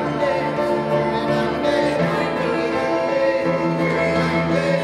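Show tune sung by cast singers over instrumental accompaniment, with held low notes underneath the voices.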